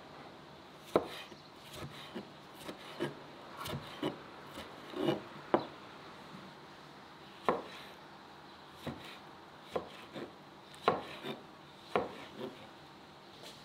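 Chef's knife chopping tomatoes on a plastic cutting board: about a dozen sharp knocks of the blade striking the board at uneven intervals.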